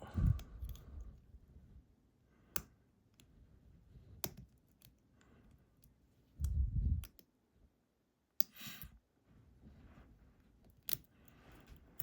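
Small metal clicks and handling noises from a lock being taken apart with a C-clip removal tool: a few sharp, spaced-out clicks, a dull thump about six and a half seconds in, and a brief scrape near nine seconds.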